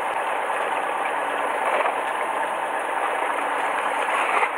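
Fishing boat's engine idling as a low steady hum under an even rushing noise that holds at one level throughout.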